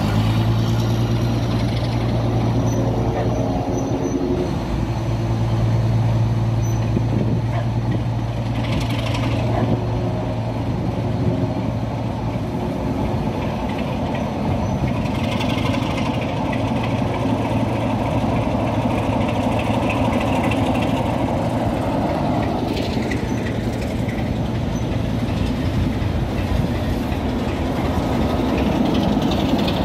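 Diesel locomotives, including Class 33 No. 33063, moving slowly past in a train. A steady low diesel engine note runs through the first half, then gives way to a rougher mix of engine and running noise.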